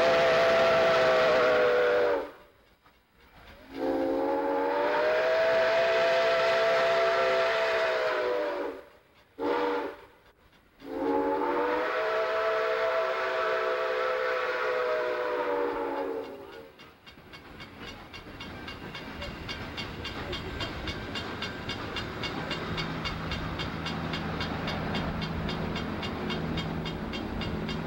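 Chesapeake and Ohio 2765, a 2-8-4 Berkshire steam locomotive, blowing its multi-note steam whistle in the grade-crossing signal: long, long, short, long. After the last blast, its passenger cars roll by with a steady running noise and rapid clicking of the wheels.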